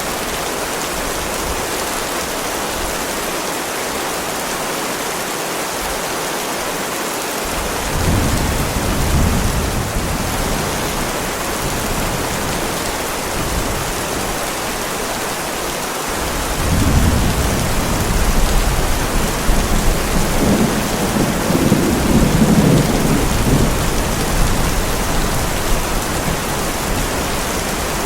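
Heavy rain falling steadily, with thunder rolling in twice: a short rumble about eight seconds in, then a longer, louder roll from about sixteen seconds that peaks a little after twenty seconds and fades out.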